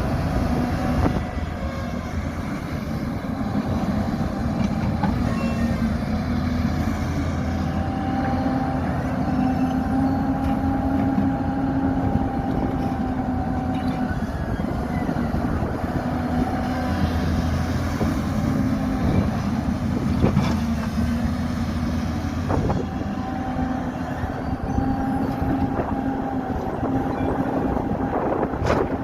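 Hyundai R220 crawler excavator running, its diesel engine and hydraulics holding a steady drone whose tone strengthens and fades in stretches as the machine works. A sharp knock comes near the end.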